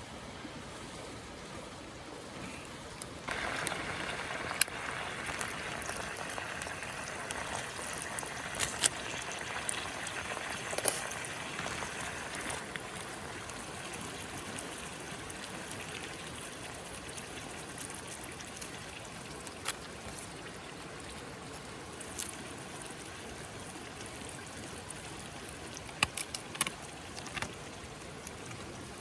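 Wood fire crackling: a steady hiss with sharp pops every few seconds, and a cluster of pops near the end. The hiss grows louder about three seconds in and eases off after about ten seconds.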